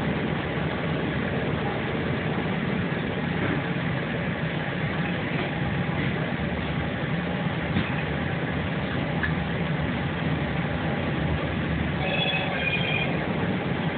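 Steady rumble and hiss of a moving passenger train, heard from inside the carriage. A short two-part tone sounds near the end.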